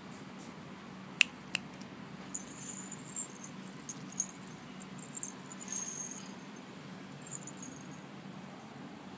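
Small bells on a cat's collar tinkling faintly and irregularly as the cat squirms, with two sharp clicks about a second and a half in. A steady low hum runs underneath.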